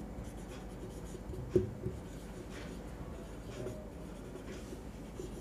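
Marker pen writing on a whiteboard: faint short strokes with pauses between them, and a single brief knock about a second and a half in.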